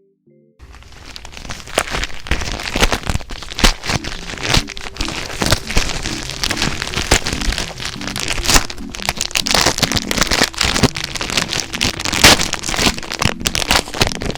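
Dense crackling and crinkling of packaging being handled, with many sharp clicks, starting about half a second in.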